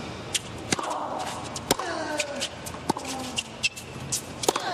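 Tennis rally: sharp strikes of racquet on ball roughly once a second, with ball bounces in between. A short grunt falling in pitch follows several of the shots.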